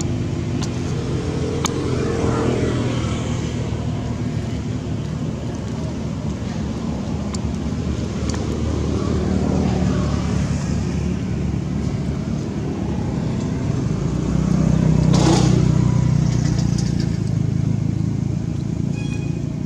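Engine drone of passing motor vehicles, rising and falling, loudest about fifteen seconds in as one passes closer.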